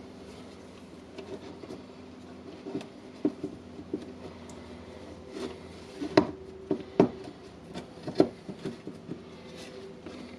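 Handling clicks and knocks of small plastic and metal parts of a Dewalt DCD780 cordless drill being fitted back together by hand, irregular, with a few sharper knocks about six, seven and eight seconds in.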